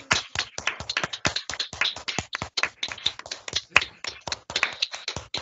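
Several people clapping at once over a video call, claps overlapping unevenly.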